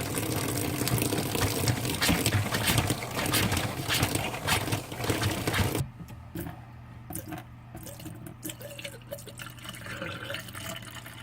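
RV antifreeze pouring from a jug through a cut-off plastic bottle funnel into a travel trailer's freshwater tank inlet, a loud steady rush of liquid. It stops abruptly about six seconds in, leaving quieter, scattered sounds.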